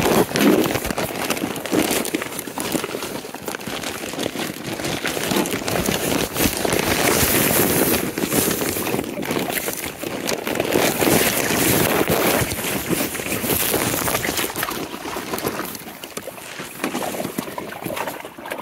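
Rough, crackling handling noise of a camera microphone rubbed and jostled against clothing as it is carried, mixed with wind buffeting the microphone.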